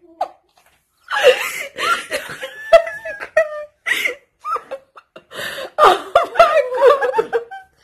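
Children shrieking and laughing with excitement in a run of loud, high-pitched outbursts, starting about a second in after a brief hush.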